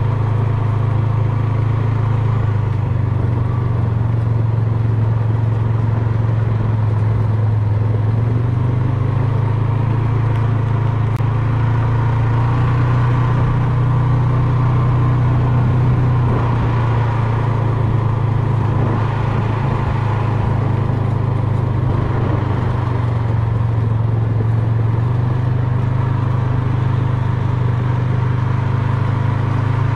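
Quad bike (ATV) engine running steadily under way, a constant low drone whose pitch rises a little a couple of times.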